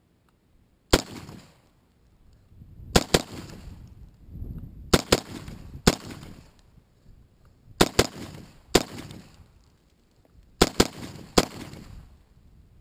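AR-15 rifle with a VG6 Gamma 556 muzzle brake firing American Eagle .223 in semi-auto: about eleven single shots, irregularly spaced, some in quick pairs, each with a short echo.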